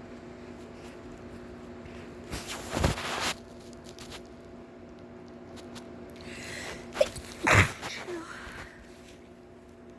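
A person sneezing twice, about five seconds apart; the second sneeze comes after an audible breath in.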